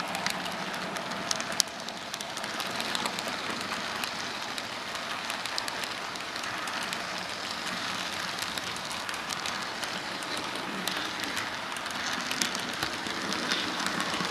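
Model freight train cars rolling past on the track: a steady rattling hiss of metal wheels on the rails, dotted with many small sharp clicks.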